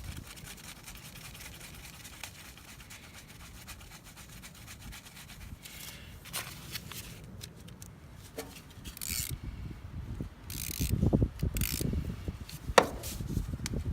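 Rubbing and scraping of hands and tools at work on the generator, with low thumps in the second half and a sharp click near the end.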